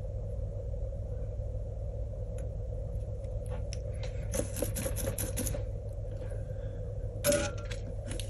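Small clicks and rattles of a soldering iron, wires and tools being handled on a wooden workbench: a cluster about four to five and a half seconds in, a sharp clack about seven seconds in, and a few more near the end, over a steady low hum.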